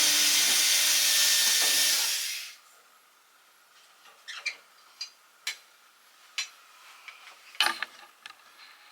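Power screwdriver running steadily for about two and a half seconds, taking a screw out of the wall, followed by a few light clicks and knocks.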